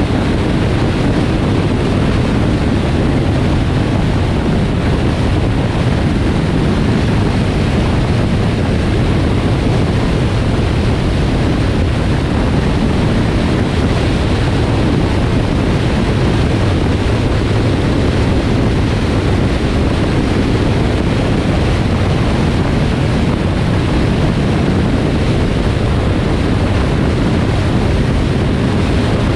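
Steady rush of wind and tyre noise from a car driving at highway speed, an even low roar that does not change.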